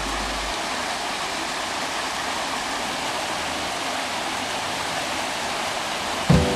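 Steady rush of flowing water in a mill stream, an even noise with no breaks. Music with a beat starts near the end.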